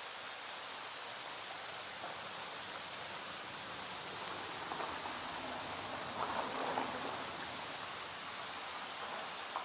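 Small stream flowing steadily, with rain falling, swelling briefly a little louder in the middle.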